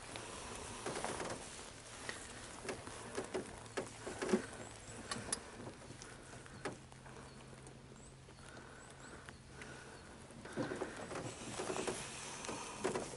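Faint rustling and small clicks of hands handling fishing line and a soft-plastic worm while re-rigging it, busiest at the start and again near the end, with a quieter stretch in the middle.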